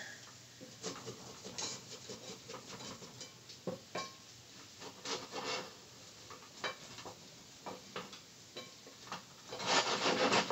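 Wooden spatula scraping and rubbing along the sides of a stainless steel skillet, loosening a pasta omelet that is sticking to the pan: irregular scrapes with light knocks, louder near the end.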